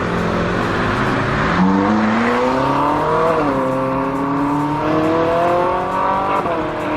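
Sports-car engine sound accelerating: the pitch climbs, drops sharply at a gear change about three seconds in, climbs again, then falls back near the end.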